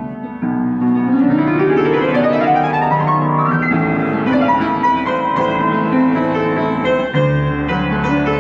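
Piano music, with a long run of notes climbing in pitch from about half a second in over some three seconds, then held chords.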